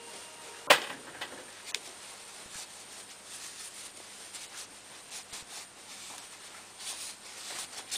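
Small handling sounds as a lacquered spoon and a cloth are worked over a metal grate: a sharp tap about a second in, then faint scattered ticks and rustling that grow a little louder near the end.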